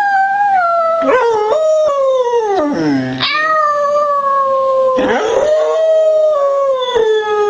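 Beagle howling in long, drawn-out howls. One howl slides down in pitch and ends about three seconds in, and the next runs until near the end, where it also drops away.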